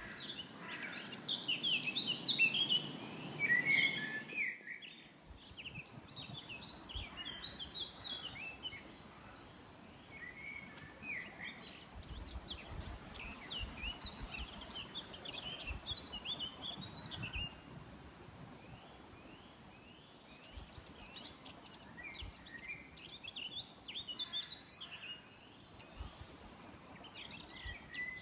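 Many songbirds singing and chirping together, a dense overlapping mix of short whistles and trills. The birdsong is loudest at first and drops at a sudden cut about four and a half seconds in, after which it goes on more faintly over intermittent low rumbles.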